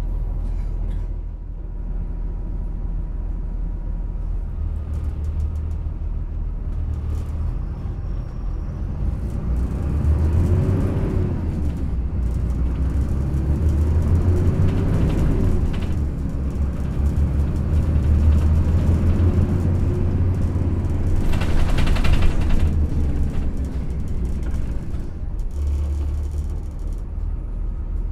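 Yutong ZK6128HG low-floor city bus engine heard from inside the cabin while driving, a steady low rumble with the engine note rising and falling three times as the bus accelerates and shifts. A brief loud rushing burst comes about two-thirds of the way in.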